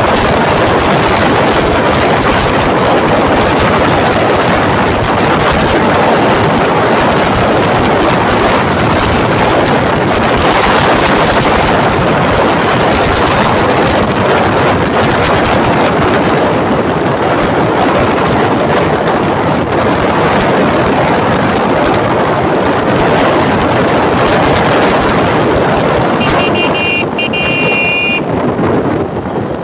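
Loud, steady wind rush over the microphone of a phone held out on a moving motorcycle, with the engine and road noise under it. A brief high-pitched tone sounds near the end.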